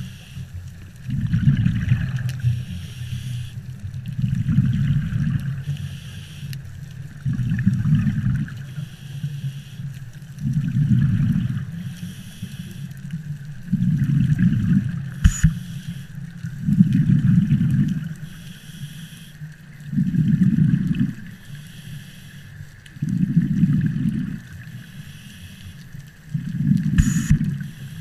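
Scuba diver breathing underwater through a regulator in a steady rhythm: a bubbly rumbling exhale about every three seconds, with a softer hiss of the inhale between. Two sharp clicks, one about halfway through and one near the end.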